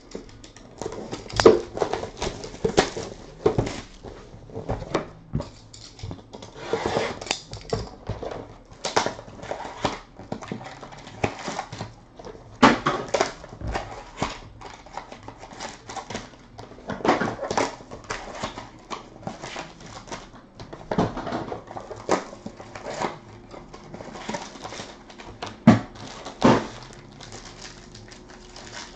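Trading-card box and packs being opened and handled by hand: irregular clicks, rustling and crinkling of cardboard and wrappers, with a sharper knock now and then.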